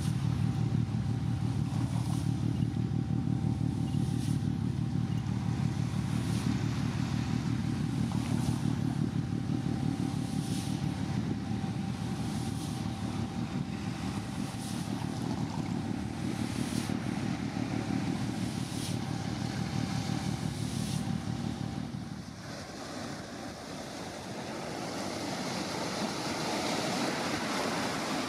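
A steady low engine rumble with a thin, even whine above it, which falls away about 22 seconds in. Waves washing onto a rocky shore then rise in its place.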